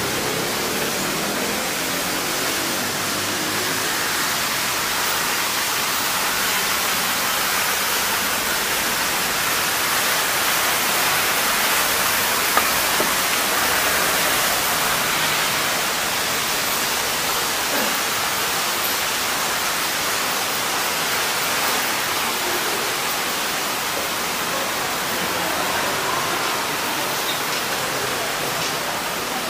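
Steady, even rushing hiss with no distinct events, and one faint click about twelve seconds in.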